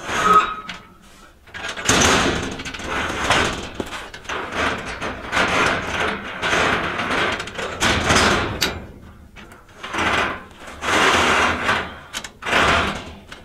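Thin steel sheet scraping and sliding across the cut slats of a CNC plasma table as it is shoved forward in several pushes, each a second or two long. The drag comes from the slats' little barbs.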